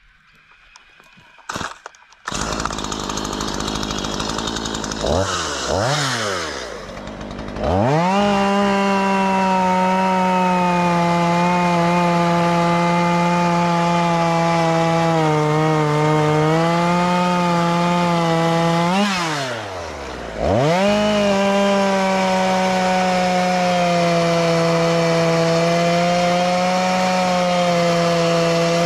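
Two-stroke chainsaw fitted with a tungsten-carbide chain cutting into thick ironbark. It comes in about two seconds in and is blipped a couple of times, then held at full throttle with the note sagging a little under load. Near the middle the pitch jumps as the saw frees up; it drops briefly and goes back into the cut at full revs, the chain still sharp on a second tank of fuel.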